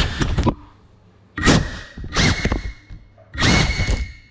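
Small FPV racing drone crashing: its frame and propellers knock against a wooden chair leg and hit a tiled floor. There is a quick cluster of knocks, then three more thumps about a second apart, with a faint steady high whine between them.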